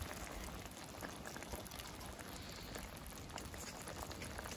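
Faint bubbling of a coconut-milk and annatto sauce simmering in a pan over a wood fire, with small scattered ticks.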